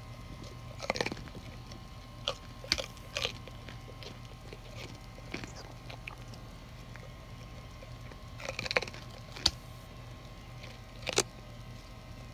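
A deer biting and crunching a hand-held carrot: scattered sharp crunches, a few in the first three seconds and another few towards the end.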